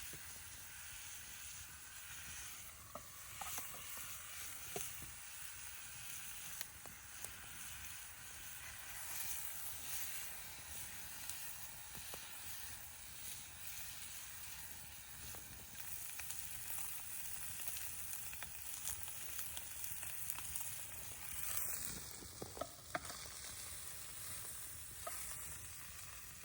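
Meat searing over a campfire, a steady sizzle with scattered small crackles.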